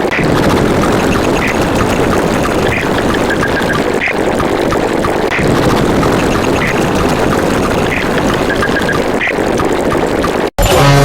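Loud, dense rumbling noise with a short high blip repeating about every second and a quarter. Near the end it cuts out for a moment and a deep, loud horn begins.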